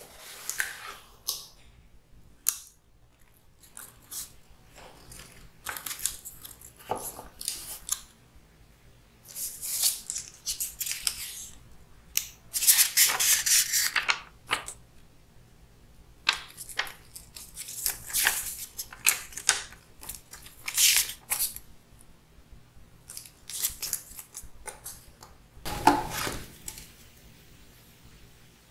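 Cardboard packaging and a paper manual being handled: irregular rustling and scraping of cardboard and paper, with pages of the manual being flicked through. A dull knock comes near the end.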